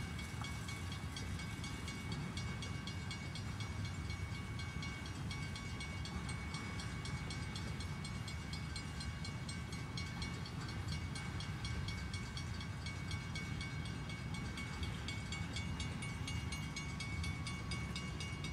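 Freight train of hopper and tank cars rolling steadily past, a continuous low rumble, with a grade-crossing warning bell ringing steadily over it.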